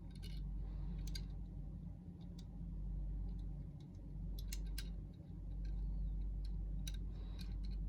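Scattered light clicks and taps of plastic packaging and a small die-cast model car being handled, irregularly spaced, over a steady low hum.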